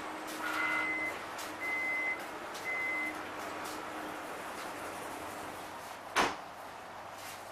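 Suburban electric train's door-closing warning: short beeps about a second apart, then a single sharp clunk of the doors shutting about six seconds in, over the steady hum of the stopped train.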